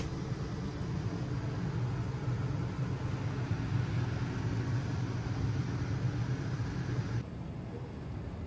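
Steady low background hum and rumble, like machinery or ventilation running. The higher part of the noise drops away suddenly about seven seconds in, leaving the low hum.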